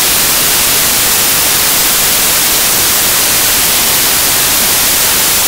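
Loud, steady static hiss like white noise, with no other sound heard through it.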